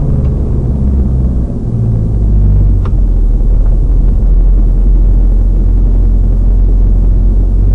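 Car engine and road noise picked up by a dashcam's microphone inside the moving car: a steady low rumble that grows louder about two seconds in.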